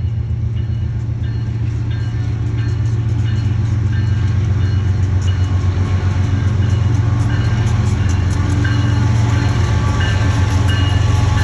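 BNSF ET44C4 diesel locomotive, its GEVO V12 engine working under the load of a loaded grain train, passing by. A steady low engine drone grows slowly louder as it comes closer.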